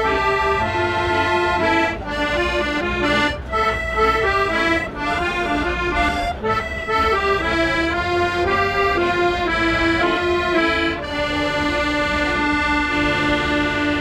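Three button accordions playing a lively folk tune together, a melody of short notes over a steady bass; over the last few seconds it settles into longer held notes.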